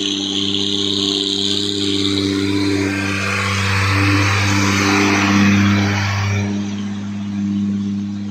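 Old, fully loaded diesel truck pulling uphill, its engine running at a steady pitch under heavy load. It grows louder as it passes close, loudest about five to six seconds in, then fades as it moves away.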